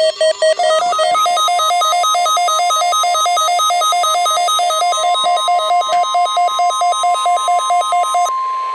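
NOAA Weather Radio warning alarm tone, a steady 1050 Hz tone, with a weather radio receiver's alert beeping over it in rapid pulses of about three a second. The beeping stops near the end while the tone carries on.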